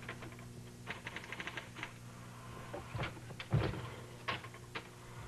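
Typewriter keys striking in irregular clacks, with a heavier thump about three and a half seconds in.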